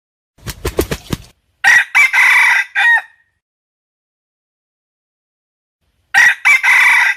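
Red junglefowl (wild rooster) crowing: two short, clipped crows about four seconds apart, each ending in a brief glide, with dead silence between. The first crow is preceded by a quick run of about six low beats.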